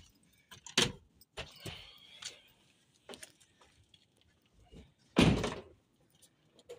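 A few light knocks and clicks, then a car door shut with a heavy thud about five seconds in, the loudest sound.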